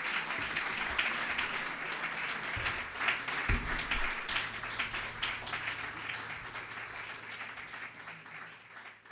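Audience applauding after a performance, many hands clapping that gradually die away near the end.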